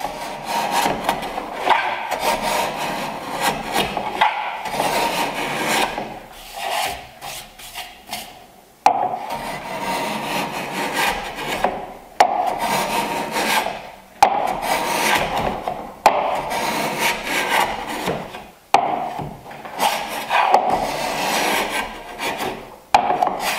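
Low-angle block plane shaving the end grain of a board held in a miter jack, in repeated strokes a second or two long, several starting sharply. It is cutting a small chamfer at the far end of the board to keep the end grain from blowing out.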